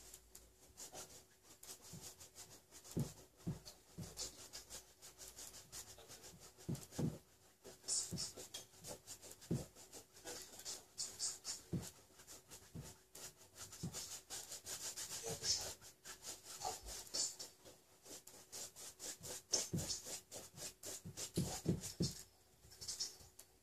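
Bristle paintbrush scrubbing oil paint onto a stretched canvas in quick, irregular back-and-forth strokes, with occasional soft thumps.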